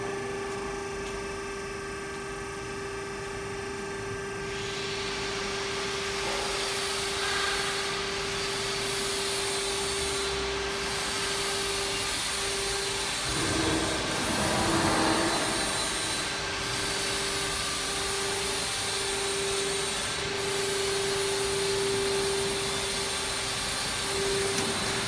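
Hydraulic lift of a GFJ-90KW high-speed disperser raising the mixing head: the power unit runs with a steady whine, joined about four seconds in by a hiss that swells briefly around the middle.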